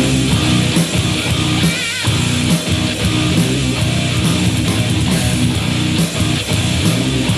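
Rock song with electric guitar playing through a Tronsmart T6 Plus Upgrade Edition Bluetooth speaker.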